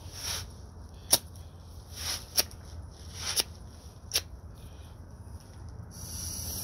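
Small firecrackers going off one after another: four sharp cracks about a second apart, the first the loudest, with softer pops between them. A steady hiss starts near the end.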